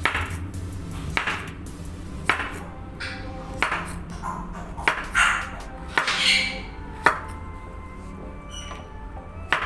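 Kitchen knife chopping peeled pumpkin on a wooden cutting board, each stroke ending in a sharp knock on the board, about one cut a second.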